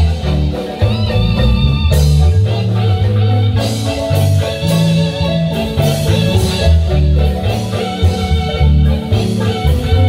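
Marimba band playing a dance tune live, marimba melody over a strong, steady bass line.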